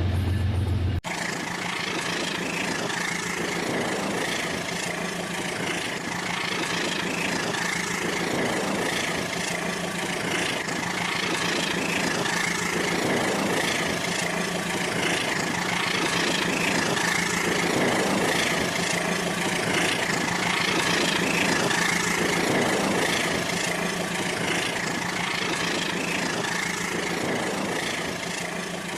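Rail King toy train running on its track: a small electric motor whirring steadily with the rattle of the running train, swelling and fading about every four to five seconds.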